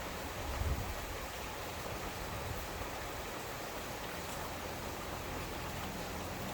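Steady rain falling, an even hiss, with a brief low rumble about half a second in.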